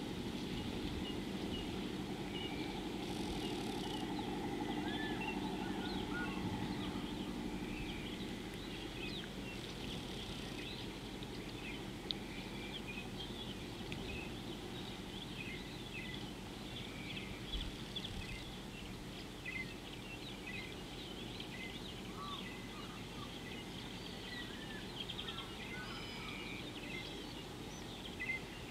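Many small birds chirping, with short high calls scattered throughout. Underneath is a low steady rumble that eases after the first several seconds.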